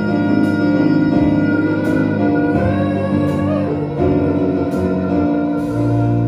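A woman singing a show tune into a microphone over electronic keyboard accompaniment, settling into a sustained chord near the end.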